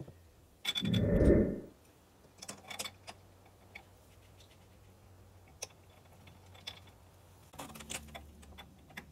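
Light metallic clinks and taps of steel PTO parts being handled by hand in the open mid-PTO gear case of a John Deere 3033 tractor. A louder scraping rumble comes about a second in and lasts under a second.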